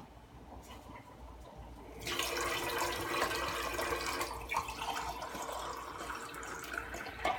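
Steady rush of running water that starts about two seconds in, with a faint steady hum under it.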